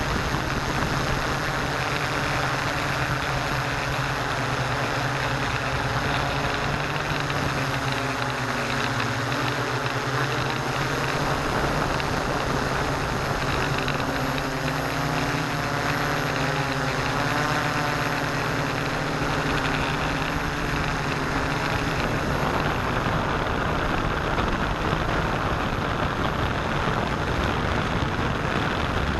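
Electric motors and propellers of a six-rotor hexacopter droning steadily in flight, heard close up from a camera mounted on the craft, over a broad rushing noise. The pitch wavers in the middle as the motor speeds shift.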